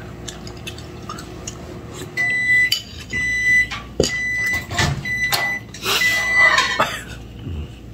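Electronic beeper sounding about five high, steady beeps, roughly one a second, with a few sharp knocks among them.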